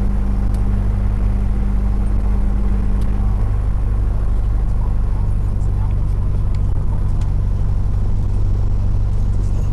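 Single-engine Cessna's piston engine and propeller heard inside the cabin, a loud, steady low drone; its hum changes slightly about three and a half seconds in.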